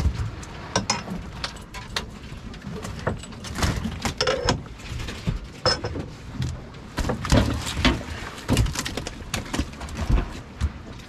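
Irregular knocks, thumps and rattles of fish and gear being handled on an aluminium boat deck, over a steady low rumble; the loudest knocks come in a cluster past the middle.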